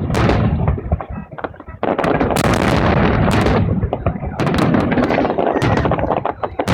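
Fireworks salute going off close by: rapid, overlapping bangs and crackles over a continuous rumbling echo, easing for a moment about a second in, then a fresh volley of many sharp cracks.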